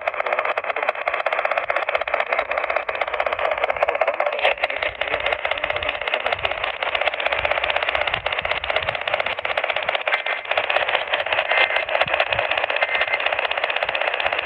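Steady, crackly static from a radio receiver, heard through a narrow, telephone-like band with no voice on it.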